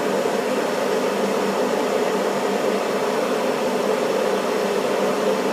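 Gas furnace's draft inducer fan motor running with a steady hum and rush of air during the pre-purge, before the hot-surface igniter glows and the burners light.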